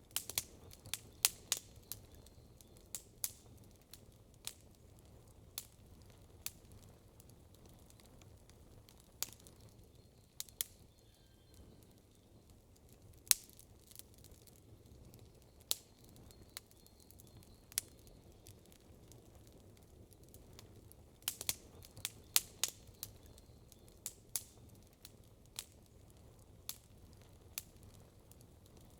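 Wood campfire crackling: irregular sharp pops and snaps, with a quick flurry of them about three-quarters of the way through.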